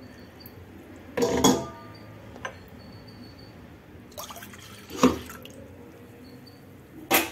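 Milk being poured from a glass into a stainless steel pot, with a few short clinks and knocks as a glass is handled and set down.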